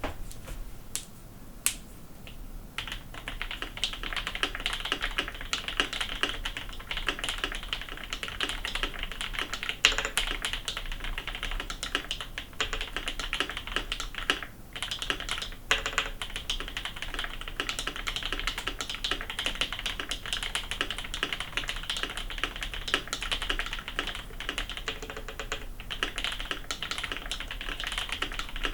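Typing on an Idobao ID80 mechanical keyboard fitted with Durock L-Series Smoke switches and doubleshot ABS keycaps. A few separate key presses come first, then from about three seconds in a steady, rapid run of key clacks.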